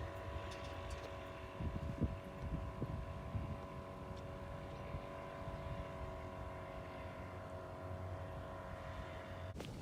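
Pontoon boat motor running at a steady speed: a low rumble with a steady whine over it, cutting off just before the end.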